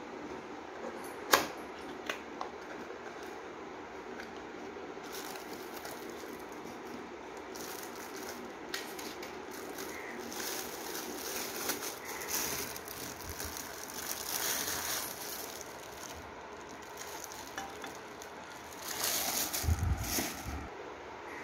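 A cardboard box being opened and a metal phone stand unwrapped from a crinkly plastic bag by hand: a sharp click about a second in, then crackling plastic rustling, and a low thump near the end as the stand is set down on the tiled floor.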